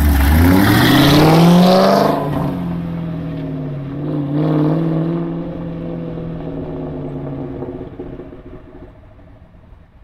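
2003 Ford Mustang Mach 1's V8 through an aftermarket exhaust, loud, accelerating hard away. The revs climb steeply for about two seconds, then level off, with a second surge about four seconds in, before the sound fades as the car pulls into the distance.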